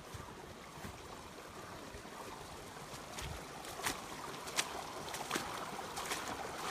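A small mountain creek running over rocks, growing louder as it comes closer, with several sharp clicks in the second half.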